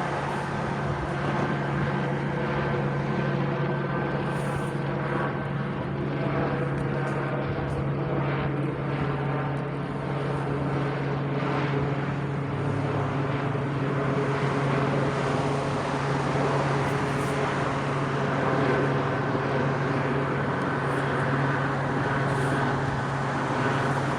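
A steady engine drone holding one pitch throughout, with a strong low hum and many overtones.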